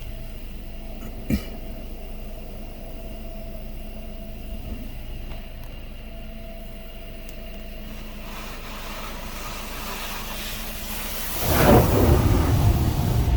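Rail-track touchless car wash machine running with a steady hum and a single sharp click. About eight seconds in, a rushing noise begins to build, and it turns loud near the end as the wash passes over the car.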